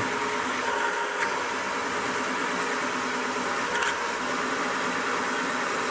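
Milling machine running steadily as a twist drill cuts a hole through a mild steel vise jaw: an even mechanical hum with a few steady tones.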